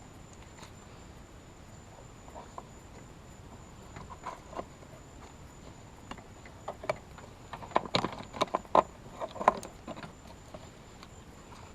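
Scattered light clicks and taps of hand work on car window trim, sparse at first and coming thick and fast about eight to ten seconds in.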